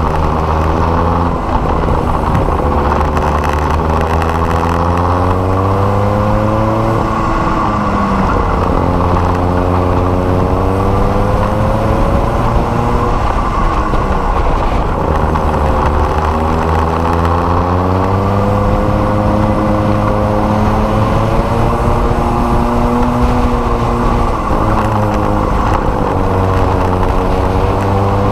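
Racing kart's Rotax MicroMax two-stroke engine at full throttle. Its pitch climbs along each straight and drops as the kart slows for corners, about four times over, with steady wind rush.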